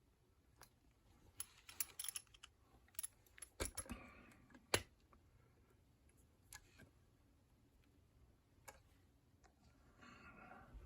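Metal clicks and knocks of a heavy Master Lock 7050 ProSeries padlock being handled and clamped into a vise: a cluster of sharp clicks over the first five seconds, the sharpest about five seconds in, then a few isolated ticks.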